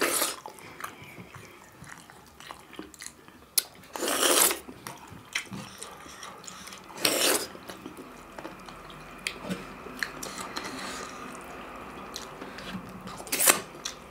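Close-miked eating sounds of people eating kodo millet dhido and chicken curry by hand: soft chewing and lip smacking, with four louder wet mouth noises, at the start, about 4 and 7 seconds in, and near the end, plus a few light clicks.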